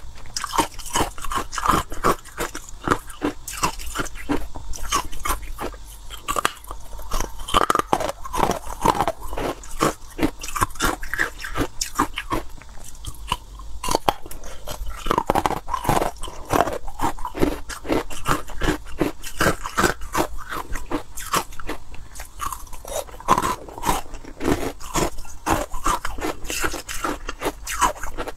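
Close-miked biting and chewing of frosty white carbonated ice, a dense run of sharp crunching cracks that goes on without a break.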